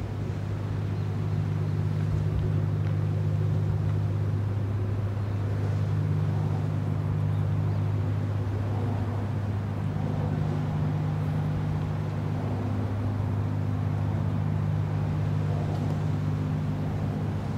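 Bulk carrier's engines as the ship steams past: a steady, deep drone with a couple of low humming tones.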